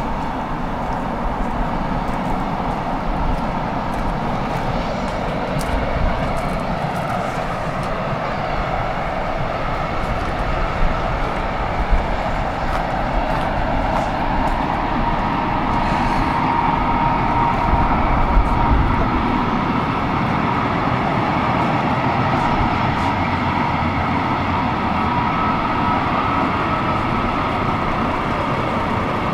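Small passenger ferry's engine running steadily, a continuous drone with a faint whine that grows a little stronger about halfway through.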